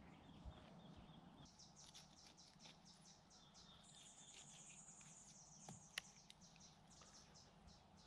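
Faint small birds chirping in quick repeated notes over quiet bush ambience, with a denser high trill around the middle and a single sharp click about six seconds in.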